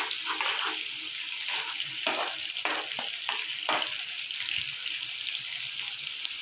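Sliced onions and green chillies sizzling in hot oil in a frying pan as a spatula stirs them, a steady hiss with many small crackles and a few louder scrapes. This is the tempering (tadka) being fried.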